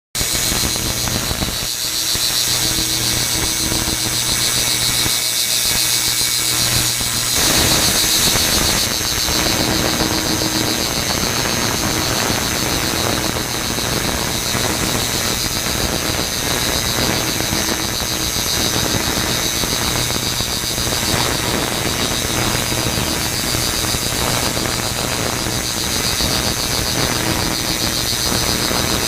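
Ultrasonic cleaning tank running: a steady mains hum under high-pitched whining tones and a dense crackling hiss from the cavitating cleaning bath. The sound grows fuller about seven seconds in.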